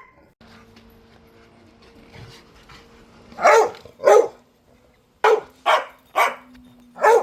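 Labrador retriever barking: two loud barks about halfway in, then four more in quick succession.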